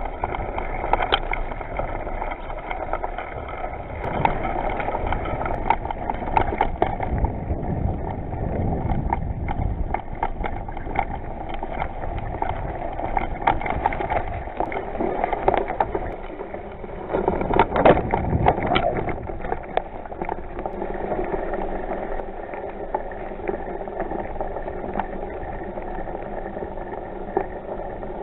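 Bicycle ridden along a rough dirt trail: a steady rumble of tyres on the ground with frequent rattles and clicks from the bike, and a louder, rougher stretch about two-thirds of the way through.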